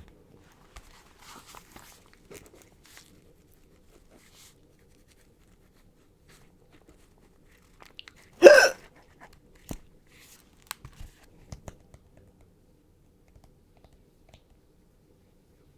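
A young woman's single hiccup about halfway through, short and sharp, with faint small clicks and rustles around it.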